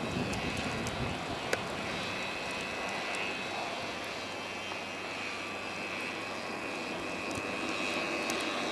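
ATV (quad bike) engine running steadily at a distance as it tows a person across the snow on a rope.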